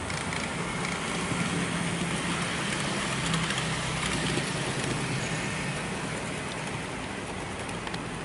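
N-scale model electric train (Arnold Renfe series 440 unit) running past on the layout track: a whirring motor hum over wheel-on-rail rattle that swells as it approaches, is loudest about three to four seconds in, and fades as it runs off around the curve.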